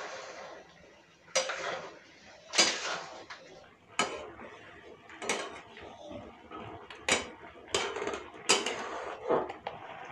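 Steel ladle clinking and scraping against an aluminium kadhai while stirring boiling macaroni, a sharp metal knock about once a second.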